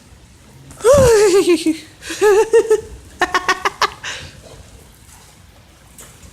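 A person's voice without words: a drawn-out falling wail about a second in, a short warbling sound, then a quick run of giggling pulses.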